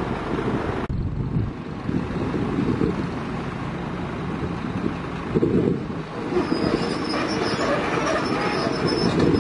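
Kobelco hydraulic excavator running and moving on its steel crawler tracks up to a self-loader truck's tilted deck. A thin high squeal joins in during the last few seconds.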